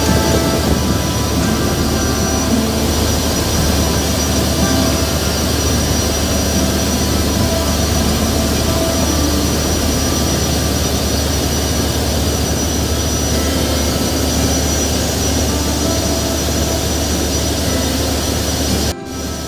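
Steady loud rumble and rush of a boat's engine with wind buffeting the microphone over open river water. The sound drops suddenly near the end.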